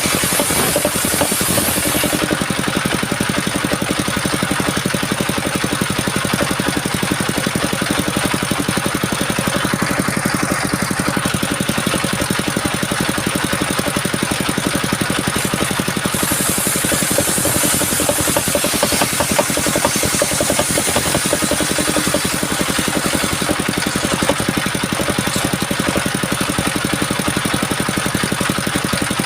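Engine of a mobile sawmill running steadily. A high hiss rides over it at the start and again from about the middle until near the end.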